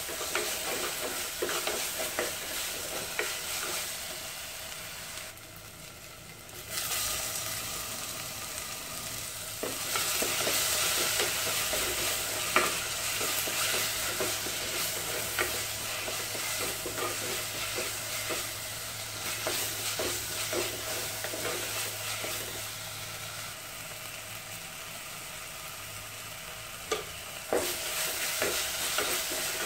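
Onions and chopped tomato sizzling as they fry in an earthenware clay pot, stirred with a wooden spatula that scrapes and taps against the pot's clay sides and bottom. The frying drops briefly about six seconds in, then sizzles louder again from about ten seconds.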